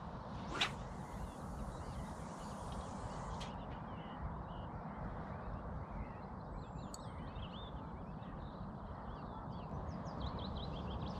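The quick swish of a carp rod being cast about half a second in, with a fainter swish a few seconds later. Small birds chirp and whistle throughout over a low, steady outdoor rumble.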